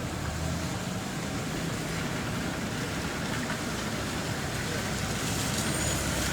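Steady hiss of heavy rain, with the low hum of a motor vehicle mixed in, strongest in the first second.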